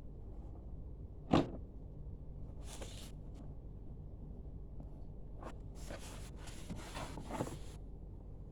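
Items being handled during an unboxing: a single sharp knock about a second and a half in, then several bursts of rustling, the longest near the end.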